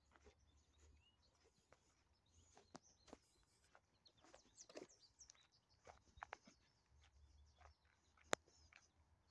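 Faint footsteps crunching on a gravel driveway, with faint bird chirps and one sharp click a little over 8 seconds in.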